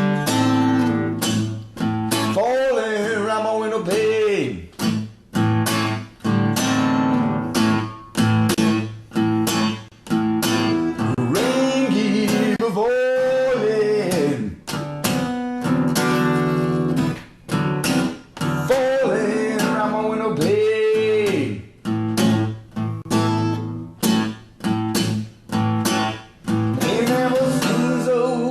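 Acoustic guitar blues: strummed and plucked chords under a melody line that bends up and down in pitch.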